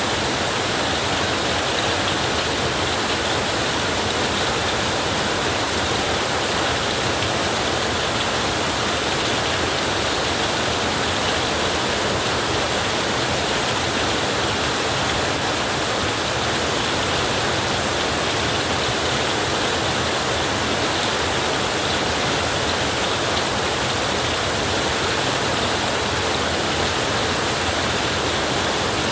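Heavy rain falling steadily on a tin roof, an even, unbroken hiss with no rumble or single strikes standing out.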